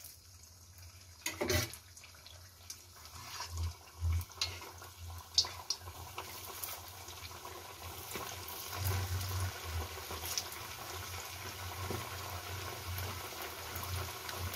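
Bread-and-potato cutlets deep-frying in hot oil in a kadhai: a steady sizzle and bubbling of oil that grows fuller after the first few seconds as more cutlets go in, with a knock about a second and a half in and a few sharp clicks.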